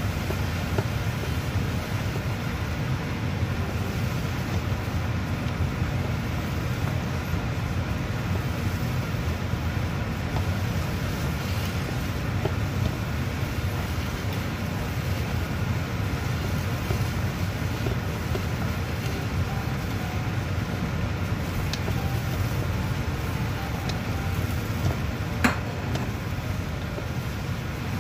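A steady low rumbling noise, with one sharp click near the end.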